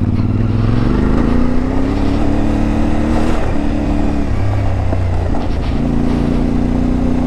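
CFMoto 450MT's parallel-twin engine with its 270-degree crankshaft, pulling under throttle. Its pitch climbs for the first few seconds, drops twice around three and a half to four seconds in, then rises again about six seconds in.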